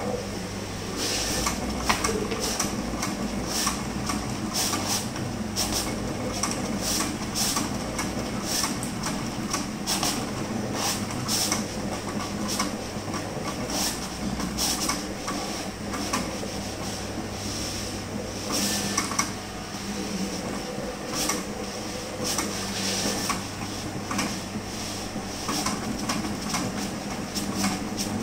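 Large-format inkjet printer at work: its print-head carriage sweeps back and forth in a quick repeating series of passes over the machine's steady hum.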